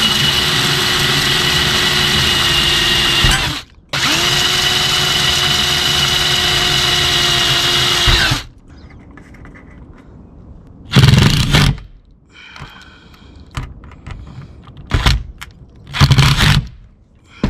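Cordless drill boring through a solar panel's aluminium mounting bracket into the van's sheet-metal roof: the motor runs at a steady pitch for about four seconds, stops briefly, then runs another four seconds. Later come a few short bursts of a cordless driver driving the mounting screws.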